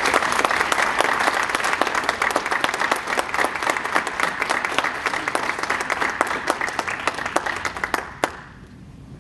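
Audience applauding with many hand claps, stopping about eight seconds in.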